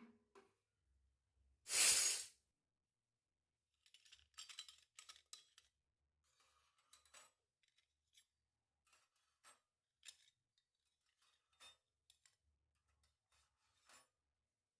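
Unboxing of a miniature toy kitchen set: one loud, short rasp of packaging about two seconds in, then light clicks and taps of small plastic toy pieces being handled.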